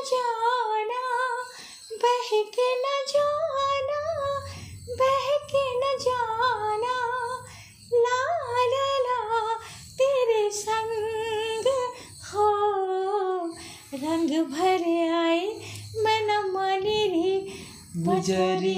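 A woman singing unaccompanied in a high voice, a slow melody in short phrases with brief breaks between them and a wavering vibrato on the held notes.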